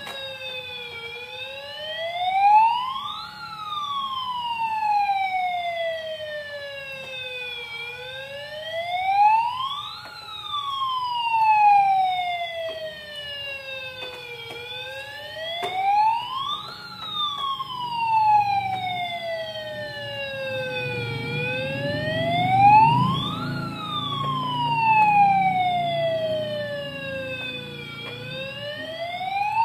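Electronic siren sound effect from a battery-operated toy fire rescue boat: a wail that climbs quickly and falls slowly, repeating about every seven seconds. A low rumble joins underneath in the second half.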